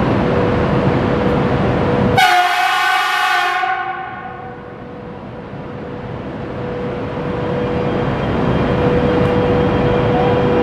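A CRH high-speed train's horn sounds once, a loud chord-like blast about two seconds in that lasts about a second and a half before fading. A steady rushing noise on the platform dips after the horn and swells back up over the last few seconds.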